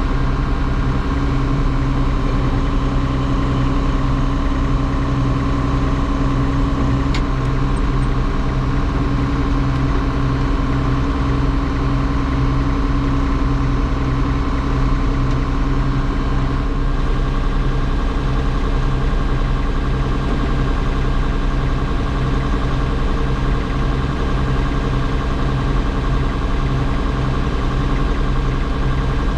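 John Deere 6620 combine's diesel engine running steadily at a constant speed, with one brief click about seven seconds in.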